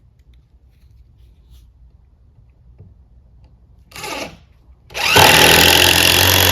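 Cordless impact driver with a T25 Torx bit driving a screw into a pilot hole in wood. It gives a short burst about four seconds in, then a second later hammers loudly and steadily as the screw goes in cleanly without cam-out.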